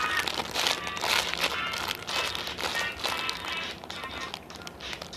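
Rustling and crinkling from squishy toys being handled, with faint background music.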